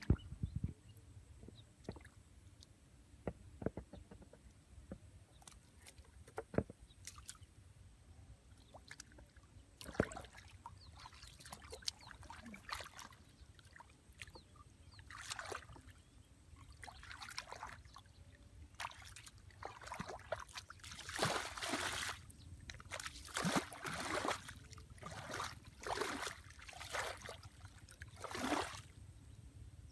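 Hands sloshing and squelching through shallow muddy water, with irregular splashes that come more often and louder in the second half.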